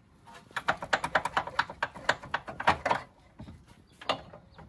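Rapid, irregular metallic clicking and clattering of hand tools on a car's front suspension for about two and a half seconds, then a couple more clicks near the end.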